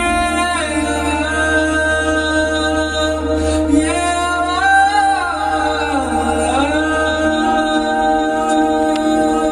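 A male voice singing long held notes with slow, ornamented bends in pitch, over a sustained electronic drone. A low bass tone under it drops out about three-quarters of the way through.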